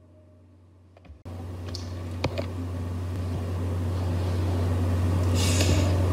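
Steady low electrical hum and room noise with no speech, jumping suddenly louder about a second in, with two sharp clicks shortly after and a short hiss near the end.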